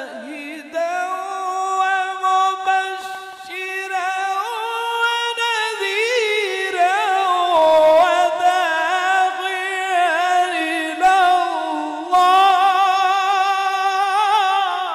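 Male qari reciting the Quran in the melodic tajweed style: long held notes with wavering ornamental turns, the pitch climbing higher in the middle before settling back.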